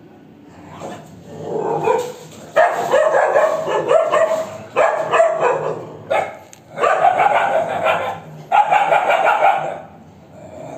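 Street dogs barking in a fight, in about five loud bouts of a second or two each.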